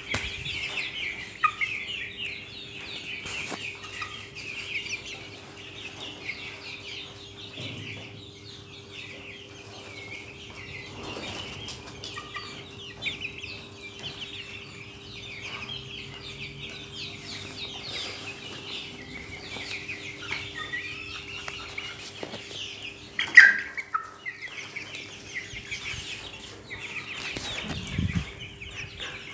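A flock of young Australorp chickens calling and clucking continuously in many short high-pitched notes, with one louder squawk about 23 seconds in.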